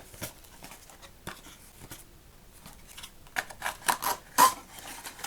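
A small cardboard toy box being opened by hand. There are faint rustles and clicks at first, then from about three seconds in a quick run of short crackles and scrapes as the flaps and packaging are worked open.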